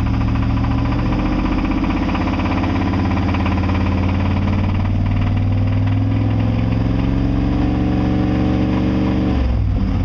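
Chevy truck engine held at raised revs, near 2,000 RPM, to bring out a knock that the owner cannot identify and fears means the engine will soon blow up. The revs drop back near the end.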